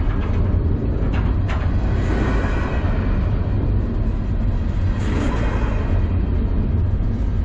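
Double-stack intermodal freight cars rolling past at close range: a steady heavy rumble of steel wheels on rail, with brief sharper wheel noises about a second in and again about five seconds in.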